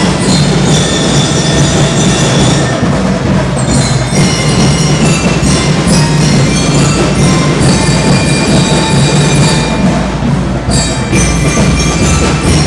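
School band playing, with drums and bright bell-like ringing tones over a heavy low end.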